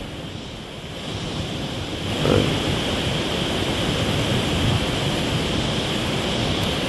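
A rain-swollen river rushing over rocks: a loud, steady wash of water noise that grows louder about two seconds in.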